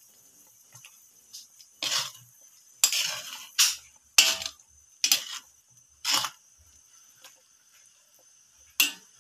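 A ladle stirring coconut-milk broth in a wok, scraping and knocking against the pan in about seven short strokes. The strokes start about two seconds in, with the last one near the end.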